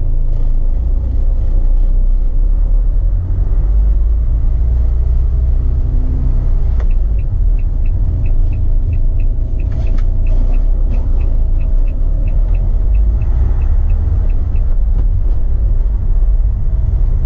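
2015 Renault Master van's 2.3-litre diesel engine and drivetrain, heard from inside the cab as the van pulls away and drives: a steady low rumble. A light, regular ticking of about three a second runs through the middle.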